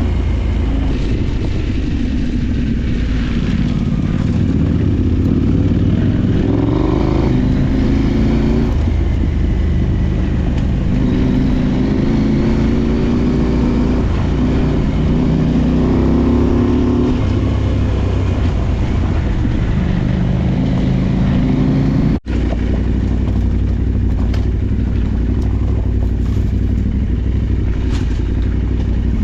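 Adventure motorcycle's parallel-twin engine running under way off-road, its pitch rising and falling repeatedly with throttle and gear changes. The sound drops out for a split second about three-quarters of the way through.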